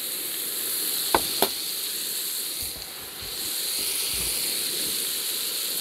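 Meat and diced bell peppers sizzling and frying in a large plough-disc paella pan, a steady high hiss. Two sharp clicks about a second in.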